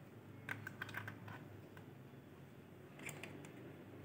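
Light plastic clicks and taps from handling a white plastic IP security camera and its power cable: a quick cluster of clicks about half a second in and a shorter one near the end.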